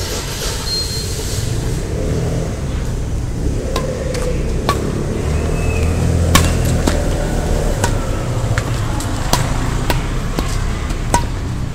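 Badminton rackets striking a shuttlecock in a rally: a string of sharp hits roughly a second apart, starting about four seconds in, over a steady low rumble.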